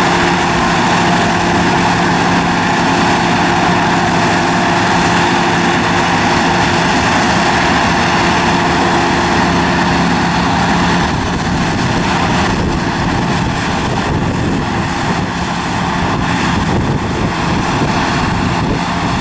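New Holland combine harvester running in the field, its engine and threshing machinery making a loud, steady drone with a humming tone. About halfway through the hum fades and the sound turns rougher and a little quieter.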